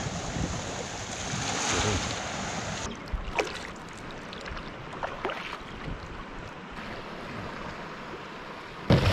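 Wind and water noise around a kayak, with a few short splashes of a paddle dipping into the water partway through, and a sudden loud knock near the end.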